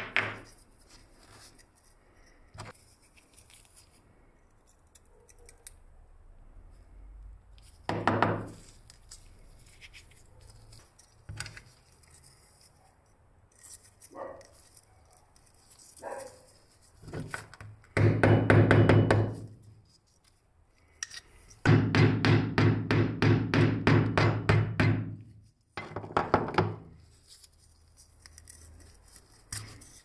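Small hand tools working an old WW2-era Japanese lighter: a sharp hammer tap on the metal case at the start, then scattered light knocks and clicks. Two runs of fast, even scraping or scrubbing strokes, the second about three seconds long, are the loudest sounds.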